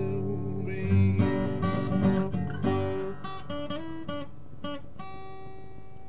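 Acoustic guitar music: strummed chords closing out a sung jingle, ending on a last chord struck about five seconds in that rings on.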